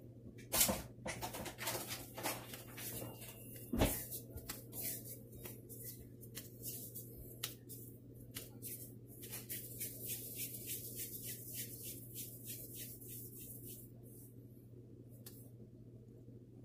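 Hands working in a bowl of dough covered with plastic wrap: two sharp knocks, then a run of small crackles and ticks that thins out near the end, over a steady low hum.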